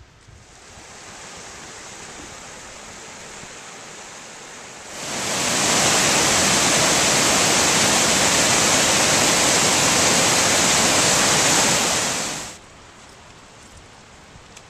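Waterfall cascading over rock, heard close up as a loud, steady rush of water that comes in about five seconds in and cuts off suddenly some seven seconds later. Before it, a quieter steady rushing of creek water.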